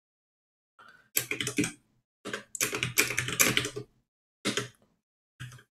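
Typing on a computer keyboard: quick runs of keystrokes starting about a second in, broken by short pauses.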